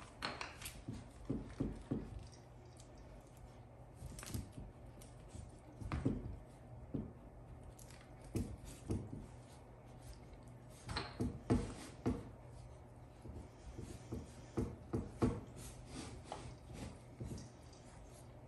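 Miniature schnauzer puppies scuffling and wrestling on a tile floor: scattered, irregular soft thumps, scrabbles and clicks, with a faint steady hum underneath.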